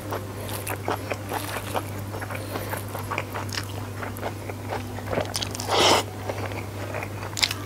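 Close-miked eating sounds: a person chewing rice with sambal petai eaten by hand, with many small wet clicks and smacks, and one loud breathy rush about six seconds in.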